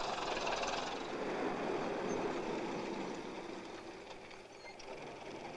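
Taxi engine and road noise as the cab drives along, dying down over the last couple of seconds.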